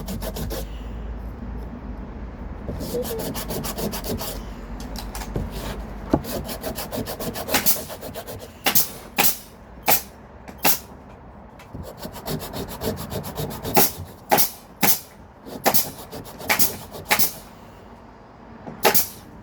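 Wood being sanded by hand on sandpaper: a continuous scraping for the first few seconds, then separate short rasping strokes, irregular, about one or two a second.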